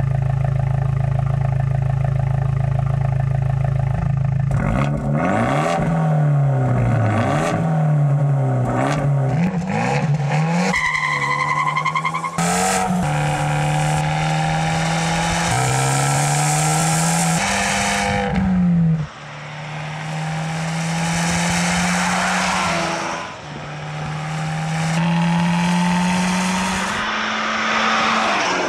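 Fiat 124 Spider Abarth's 1.4-litre turbocharged four-cylinder through its Record Monza exhaust. It runs steadily at first, then is blipped several times with the revs swinging up and down. After that it accelerates through the gears, the pitch climbing and dropping at each upshift.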